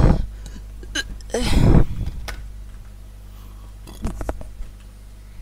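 A woman's short, sudden non-speech vocal sounds: a loud one at the start, another about a second and a half in, and a softer pair about four seconds in.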